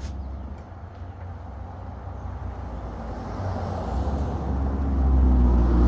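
A road vehicle passing by: a low engine and tyre rumble that grows steadily louder through the second half, with a low engine hum coming through near the end.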